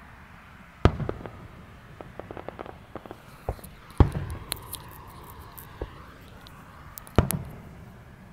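Aerial firework shells bursting: three loud bangs about three seconds apart, each trailing off in a low rumble, with smaller pops and crackles in between.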